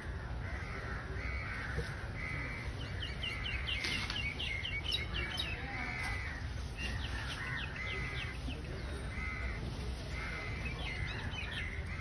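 Crows cawing over and over, short harsh calls about once a second, with a few quick runs of high chirps from smaller birds, over a steady low background rumble.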